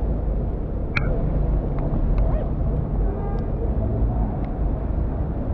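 City street ambience: steady low traffic rumble with a few sharp clicks and taps, the sharpest about a second in.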